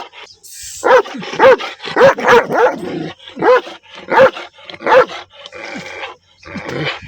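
Dog barking repeatedly, about eight loud barks spaced roughly half a second to a second apart.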